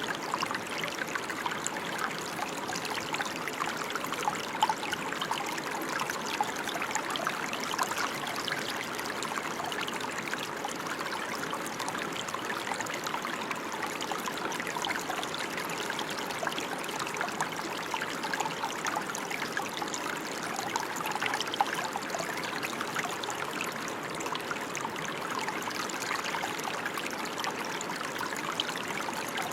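Steady rain falling: an even hiss made of many small drop impacts, with no let-up or change.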